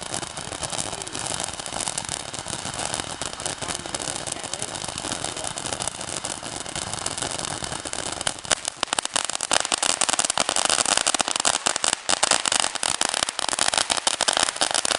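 Consumer firework fountain spraying with a steady hiss, breaking into dense, rapid crackling about halfway through.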